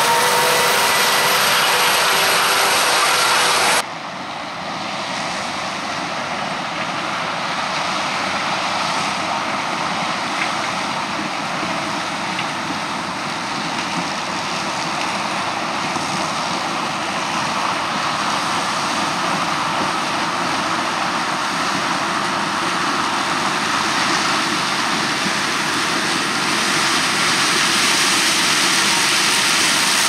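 Claas Lexion 770 combine harvester running under load while harvesting grain maize: a steady roar of engine and threshing gear, with a whine over the first few seconds. The level drops suddenly about four seconds in, then a steady rushing noise slowly grows louder.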